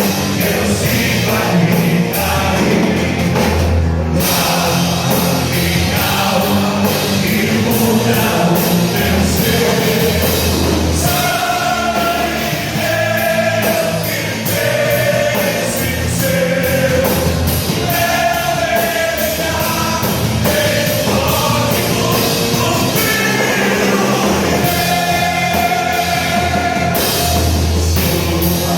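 Christian worship rock song played by a full band with drums, with singing. From about eleven seconds in, voices hold long sung notes over the band.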